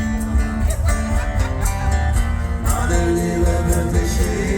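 Live band music: a mostly instrumental stretch between sung lines, with heavy bass, steady drum hits and sustained melodic notes.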